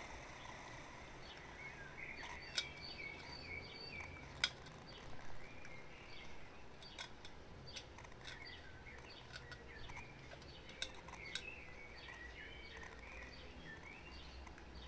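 Faint small birds chirping in short rising and falling calls, with sharp clicks scattered through, the loudest about two and a half and four and a half seconds in, over a low rumble.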